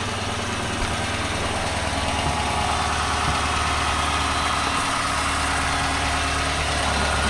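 Chrysler 5.7 Hemi V8 idling steadily with a small ticking noise, which the owner places at the driver's side exhaust manifold and suspects is an exhaust leak such as a broken manifold bolt rather than the camshaft.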